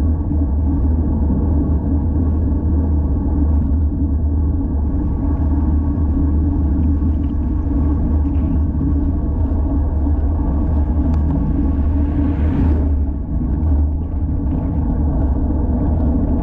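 Wind buffeting the microphone of a GoPro Hero 5 Session on a moving road bike: a steady, loud, low rumble, with a brief brighter swell about twelve seconds in.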